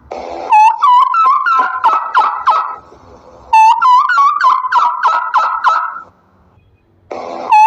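Domestic turkey gobbling: a fast, warbling rattle of a call, repeated in three bouts, the last beginning near the end.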